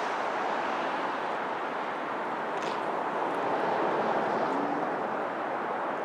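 Steady outdoor background rumble that swells slightly around the middle, with a couple of faint light ticks and no clear pecking strikes.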